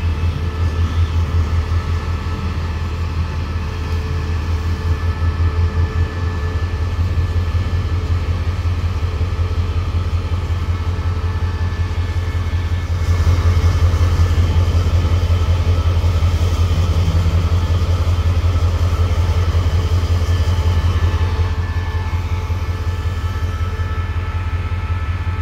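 Container freight train rolling through a station with a steady low rumble and faint, thin wheel squeals above it. It grows somewhat louder about halfway through.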